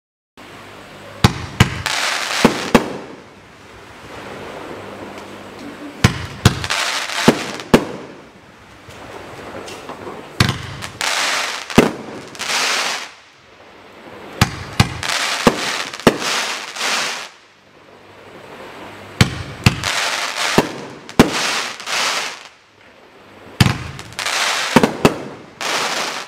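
Boom Wow Vampire Bride 500-gram, 14-shot consumer firework cake firing. Sharp reports come in about six clusters, roughly every four to five seconds, and each cluster is followed by a sustained crackle as the glittering bursts burn out.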